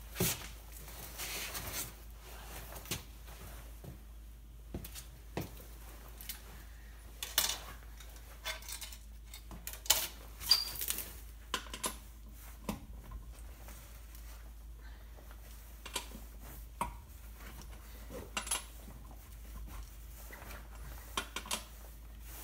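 Scattered metallic clinks and knocks of hand tools being handled, with the sharpest couple about ten seconds in and quiet spells between.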